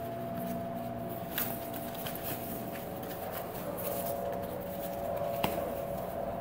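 Faint rustling and handling of a coil of rubber glazing gasket being pressed into a window frame's channel, with a couple of light clicks, over a steady faint hum.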